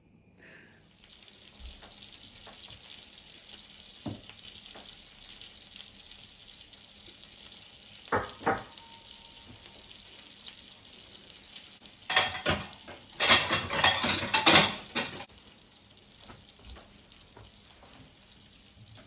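Cutlets sizzling steadily in a frying pan, with a few light clinks of dishes. About twelve seconds in comes a louder clattering, rushing noise lasting about three seconds.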